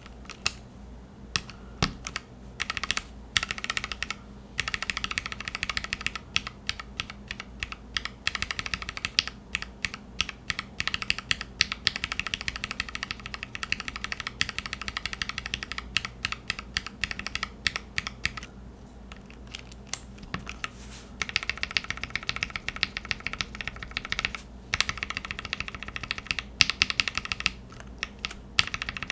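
Fast typing on a Satisfaction75 mechanical keyboard with factory-lubed OA linear switches (polycarbonate top, UHMWPE bottom), FR4 plate and GMK keycaps: a dense stream of keystroke clacks with a couple of short pauses about two-thirds of the way through.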